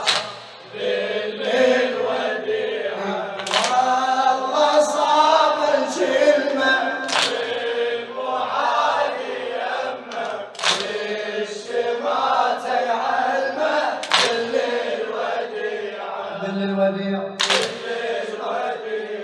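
Several men's voices chanting an Arabic Shia lament (latmiya) together, with a sharp hit about every three and a half seconds.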